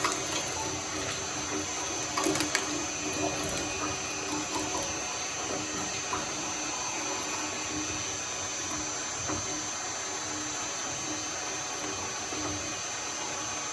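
Shredder running steadily as it grinds slime: a continuous wet noise over a low hum, with a few sharp clicks about two seconds in.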